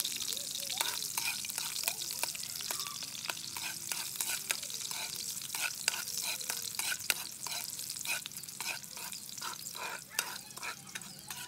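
Food sizzling in oil in a steel wok, with a metal spatula scraping and clinking against the pan many times as it is stirred.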